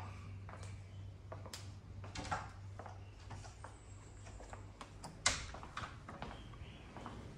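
Irregular light clicks and taps, with one sharper click a little past five seconds in, over a low steady hum.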